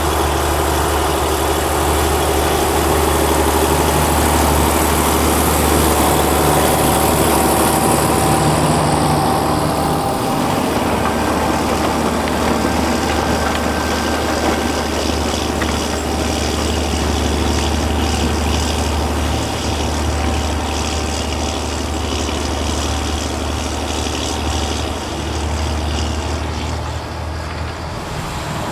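A 1974 John Deere 7520's turbocharged, intercooled 8.7-litre 531 diesel engine running steadily under load as a deep, steady drone. It grows louder over the first few seconds and eases off a little near the end.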